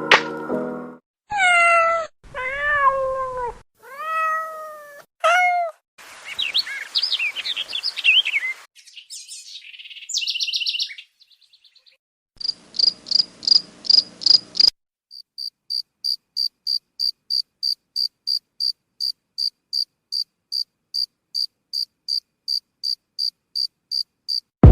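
A string of separate animal sound effects: a cat meowing four times, then a patch of short high chirps, then steady cricket chirping repeated evenly, about three chirps a second, for the last ten seconds.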